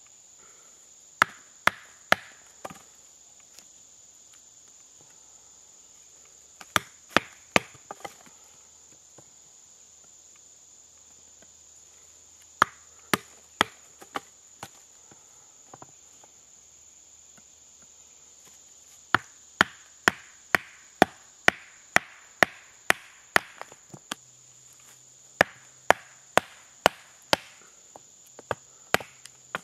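A wooden baton hammering the spine of a 1075 carbon-steel bushcraft knife to drive it through pignut hickory. The sharp knocks come about two a second in runs of four or five with pauses between, and a longer run of ten or so starts about two-thirds of the way in. A steady high insect trill runs underneath.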